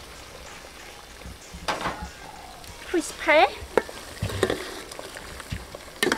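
Water boiling hard in an aluminium pot while a metal ladle scrapes and clinks against a steel bowl and the pot rim, adding fish paste. About halfway through comes a brief loud squeal.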